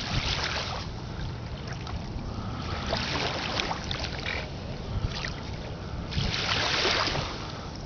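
Small lake waves washing up on a sandy shore, three washes in a row, each a swelling hiss that fades away, over a low steady wind rumble on the microphone.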